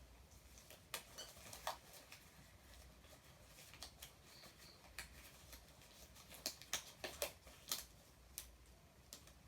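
Faint scattered clicks and light taps in a quiet small room, most of them in a quick run of about five near the end.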